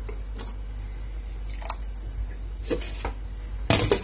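A few faint taps over a steady low hum, then near the end a short, louder clatter of a glass lid being set on a stainless steel cooking pot.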